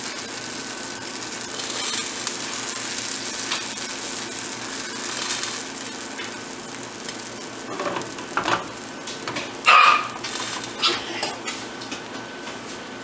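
Oatmeal pancake batter sizzling steadily in a hot frying pan while a metal spoon spreads it. A few short knocks and scrapes from the spoon come about eight to eleven seconds in, the loudest near ten seconds.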